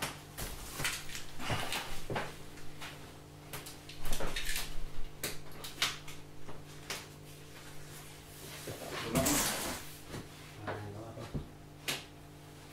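Irregular knocks, clicks and scrapes of large cardboard packaging panels and polystyrene packing being handled, the loudest knocks about four seconds in and a longer scraping rustle about nine seconds in, with footsteps on a wooden floor.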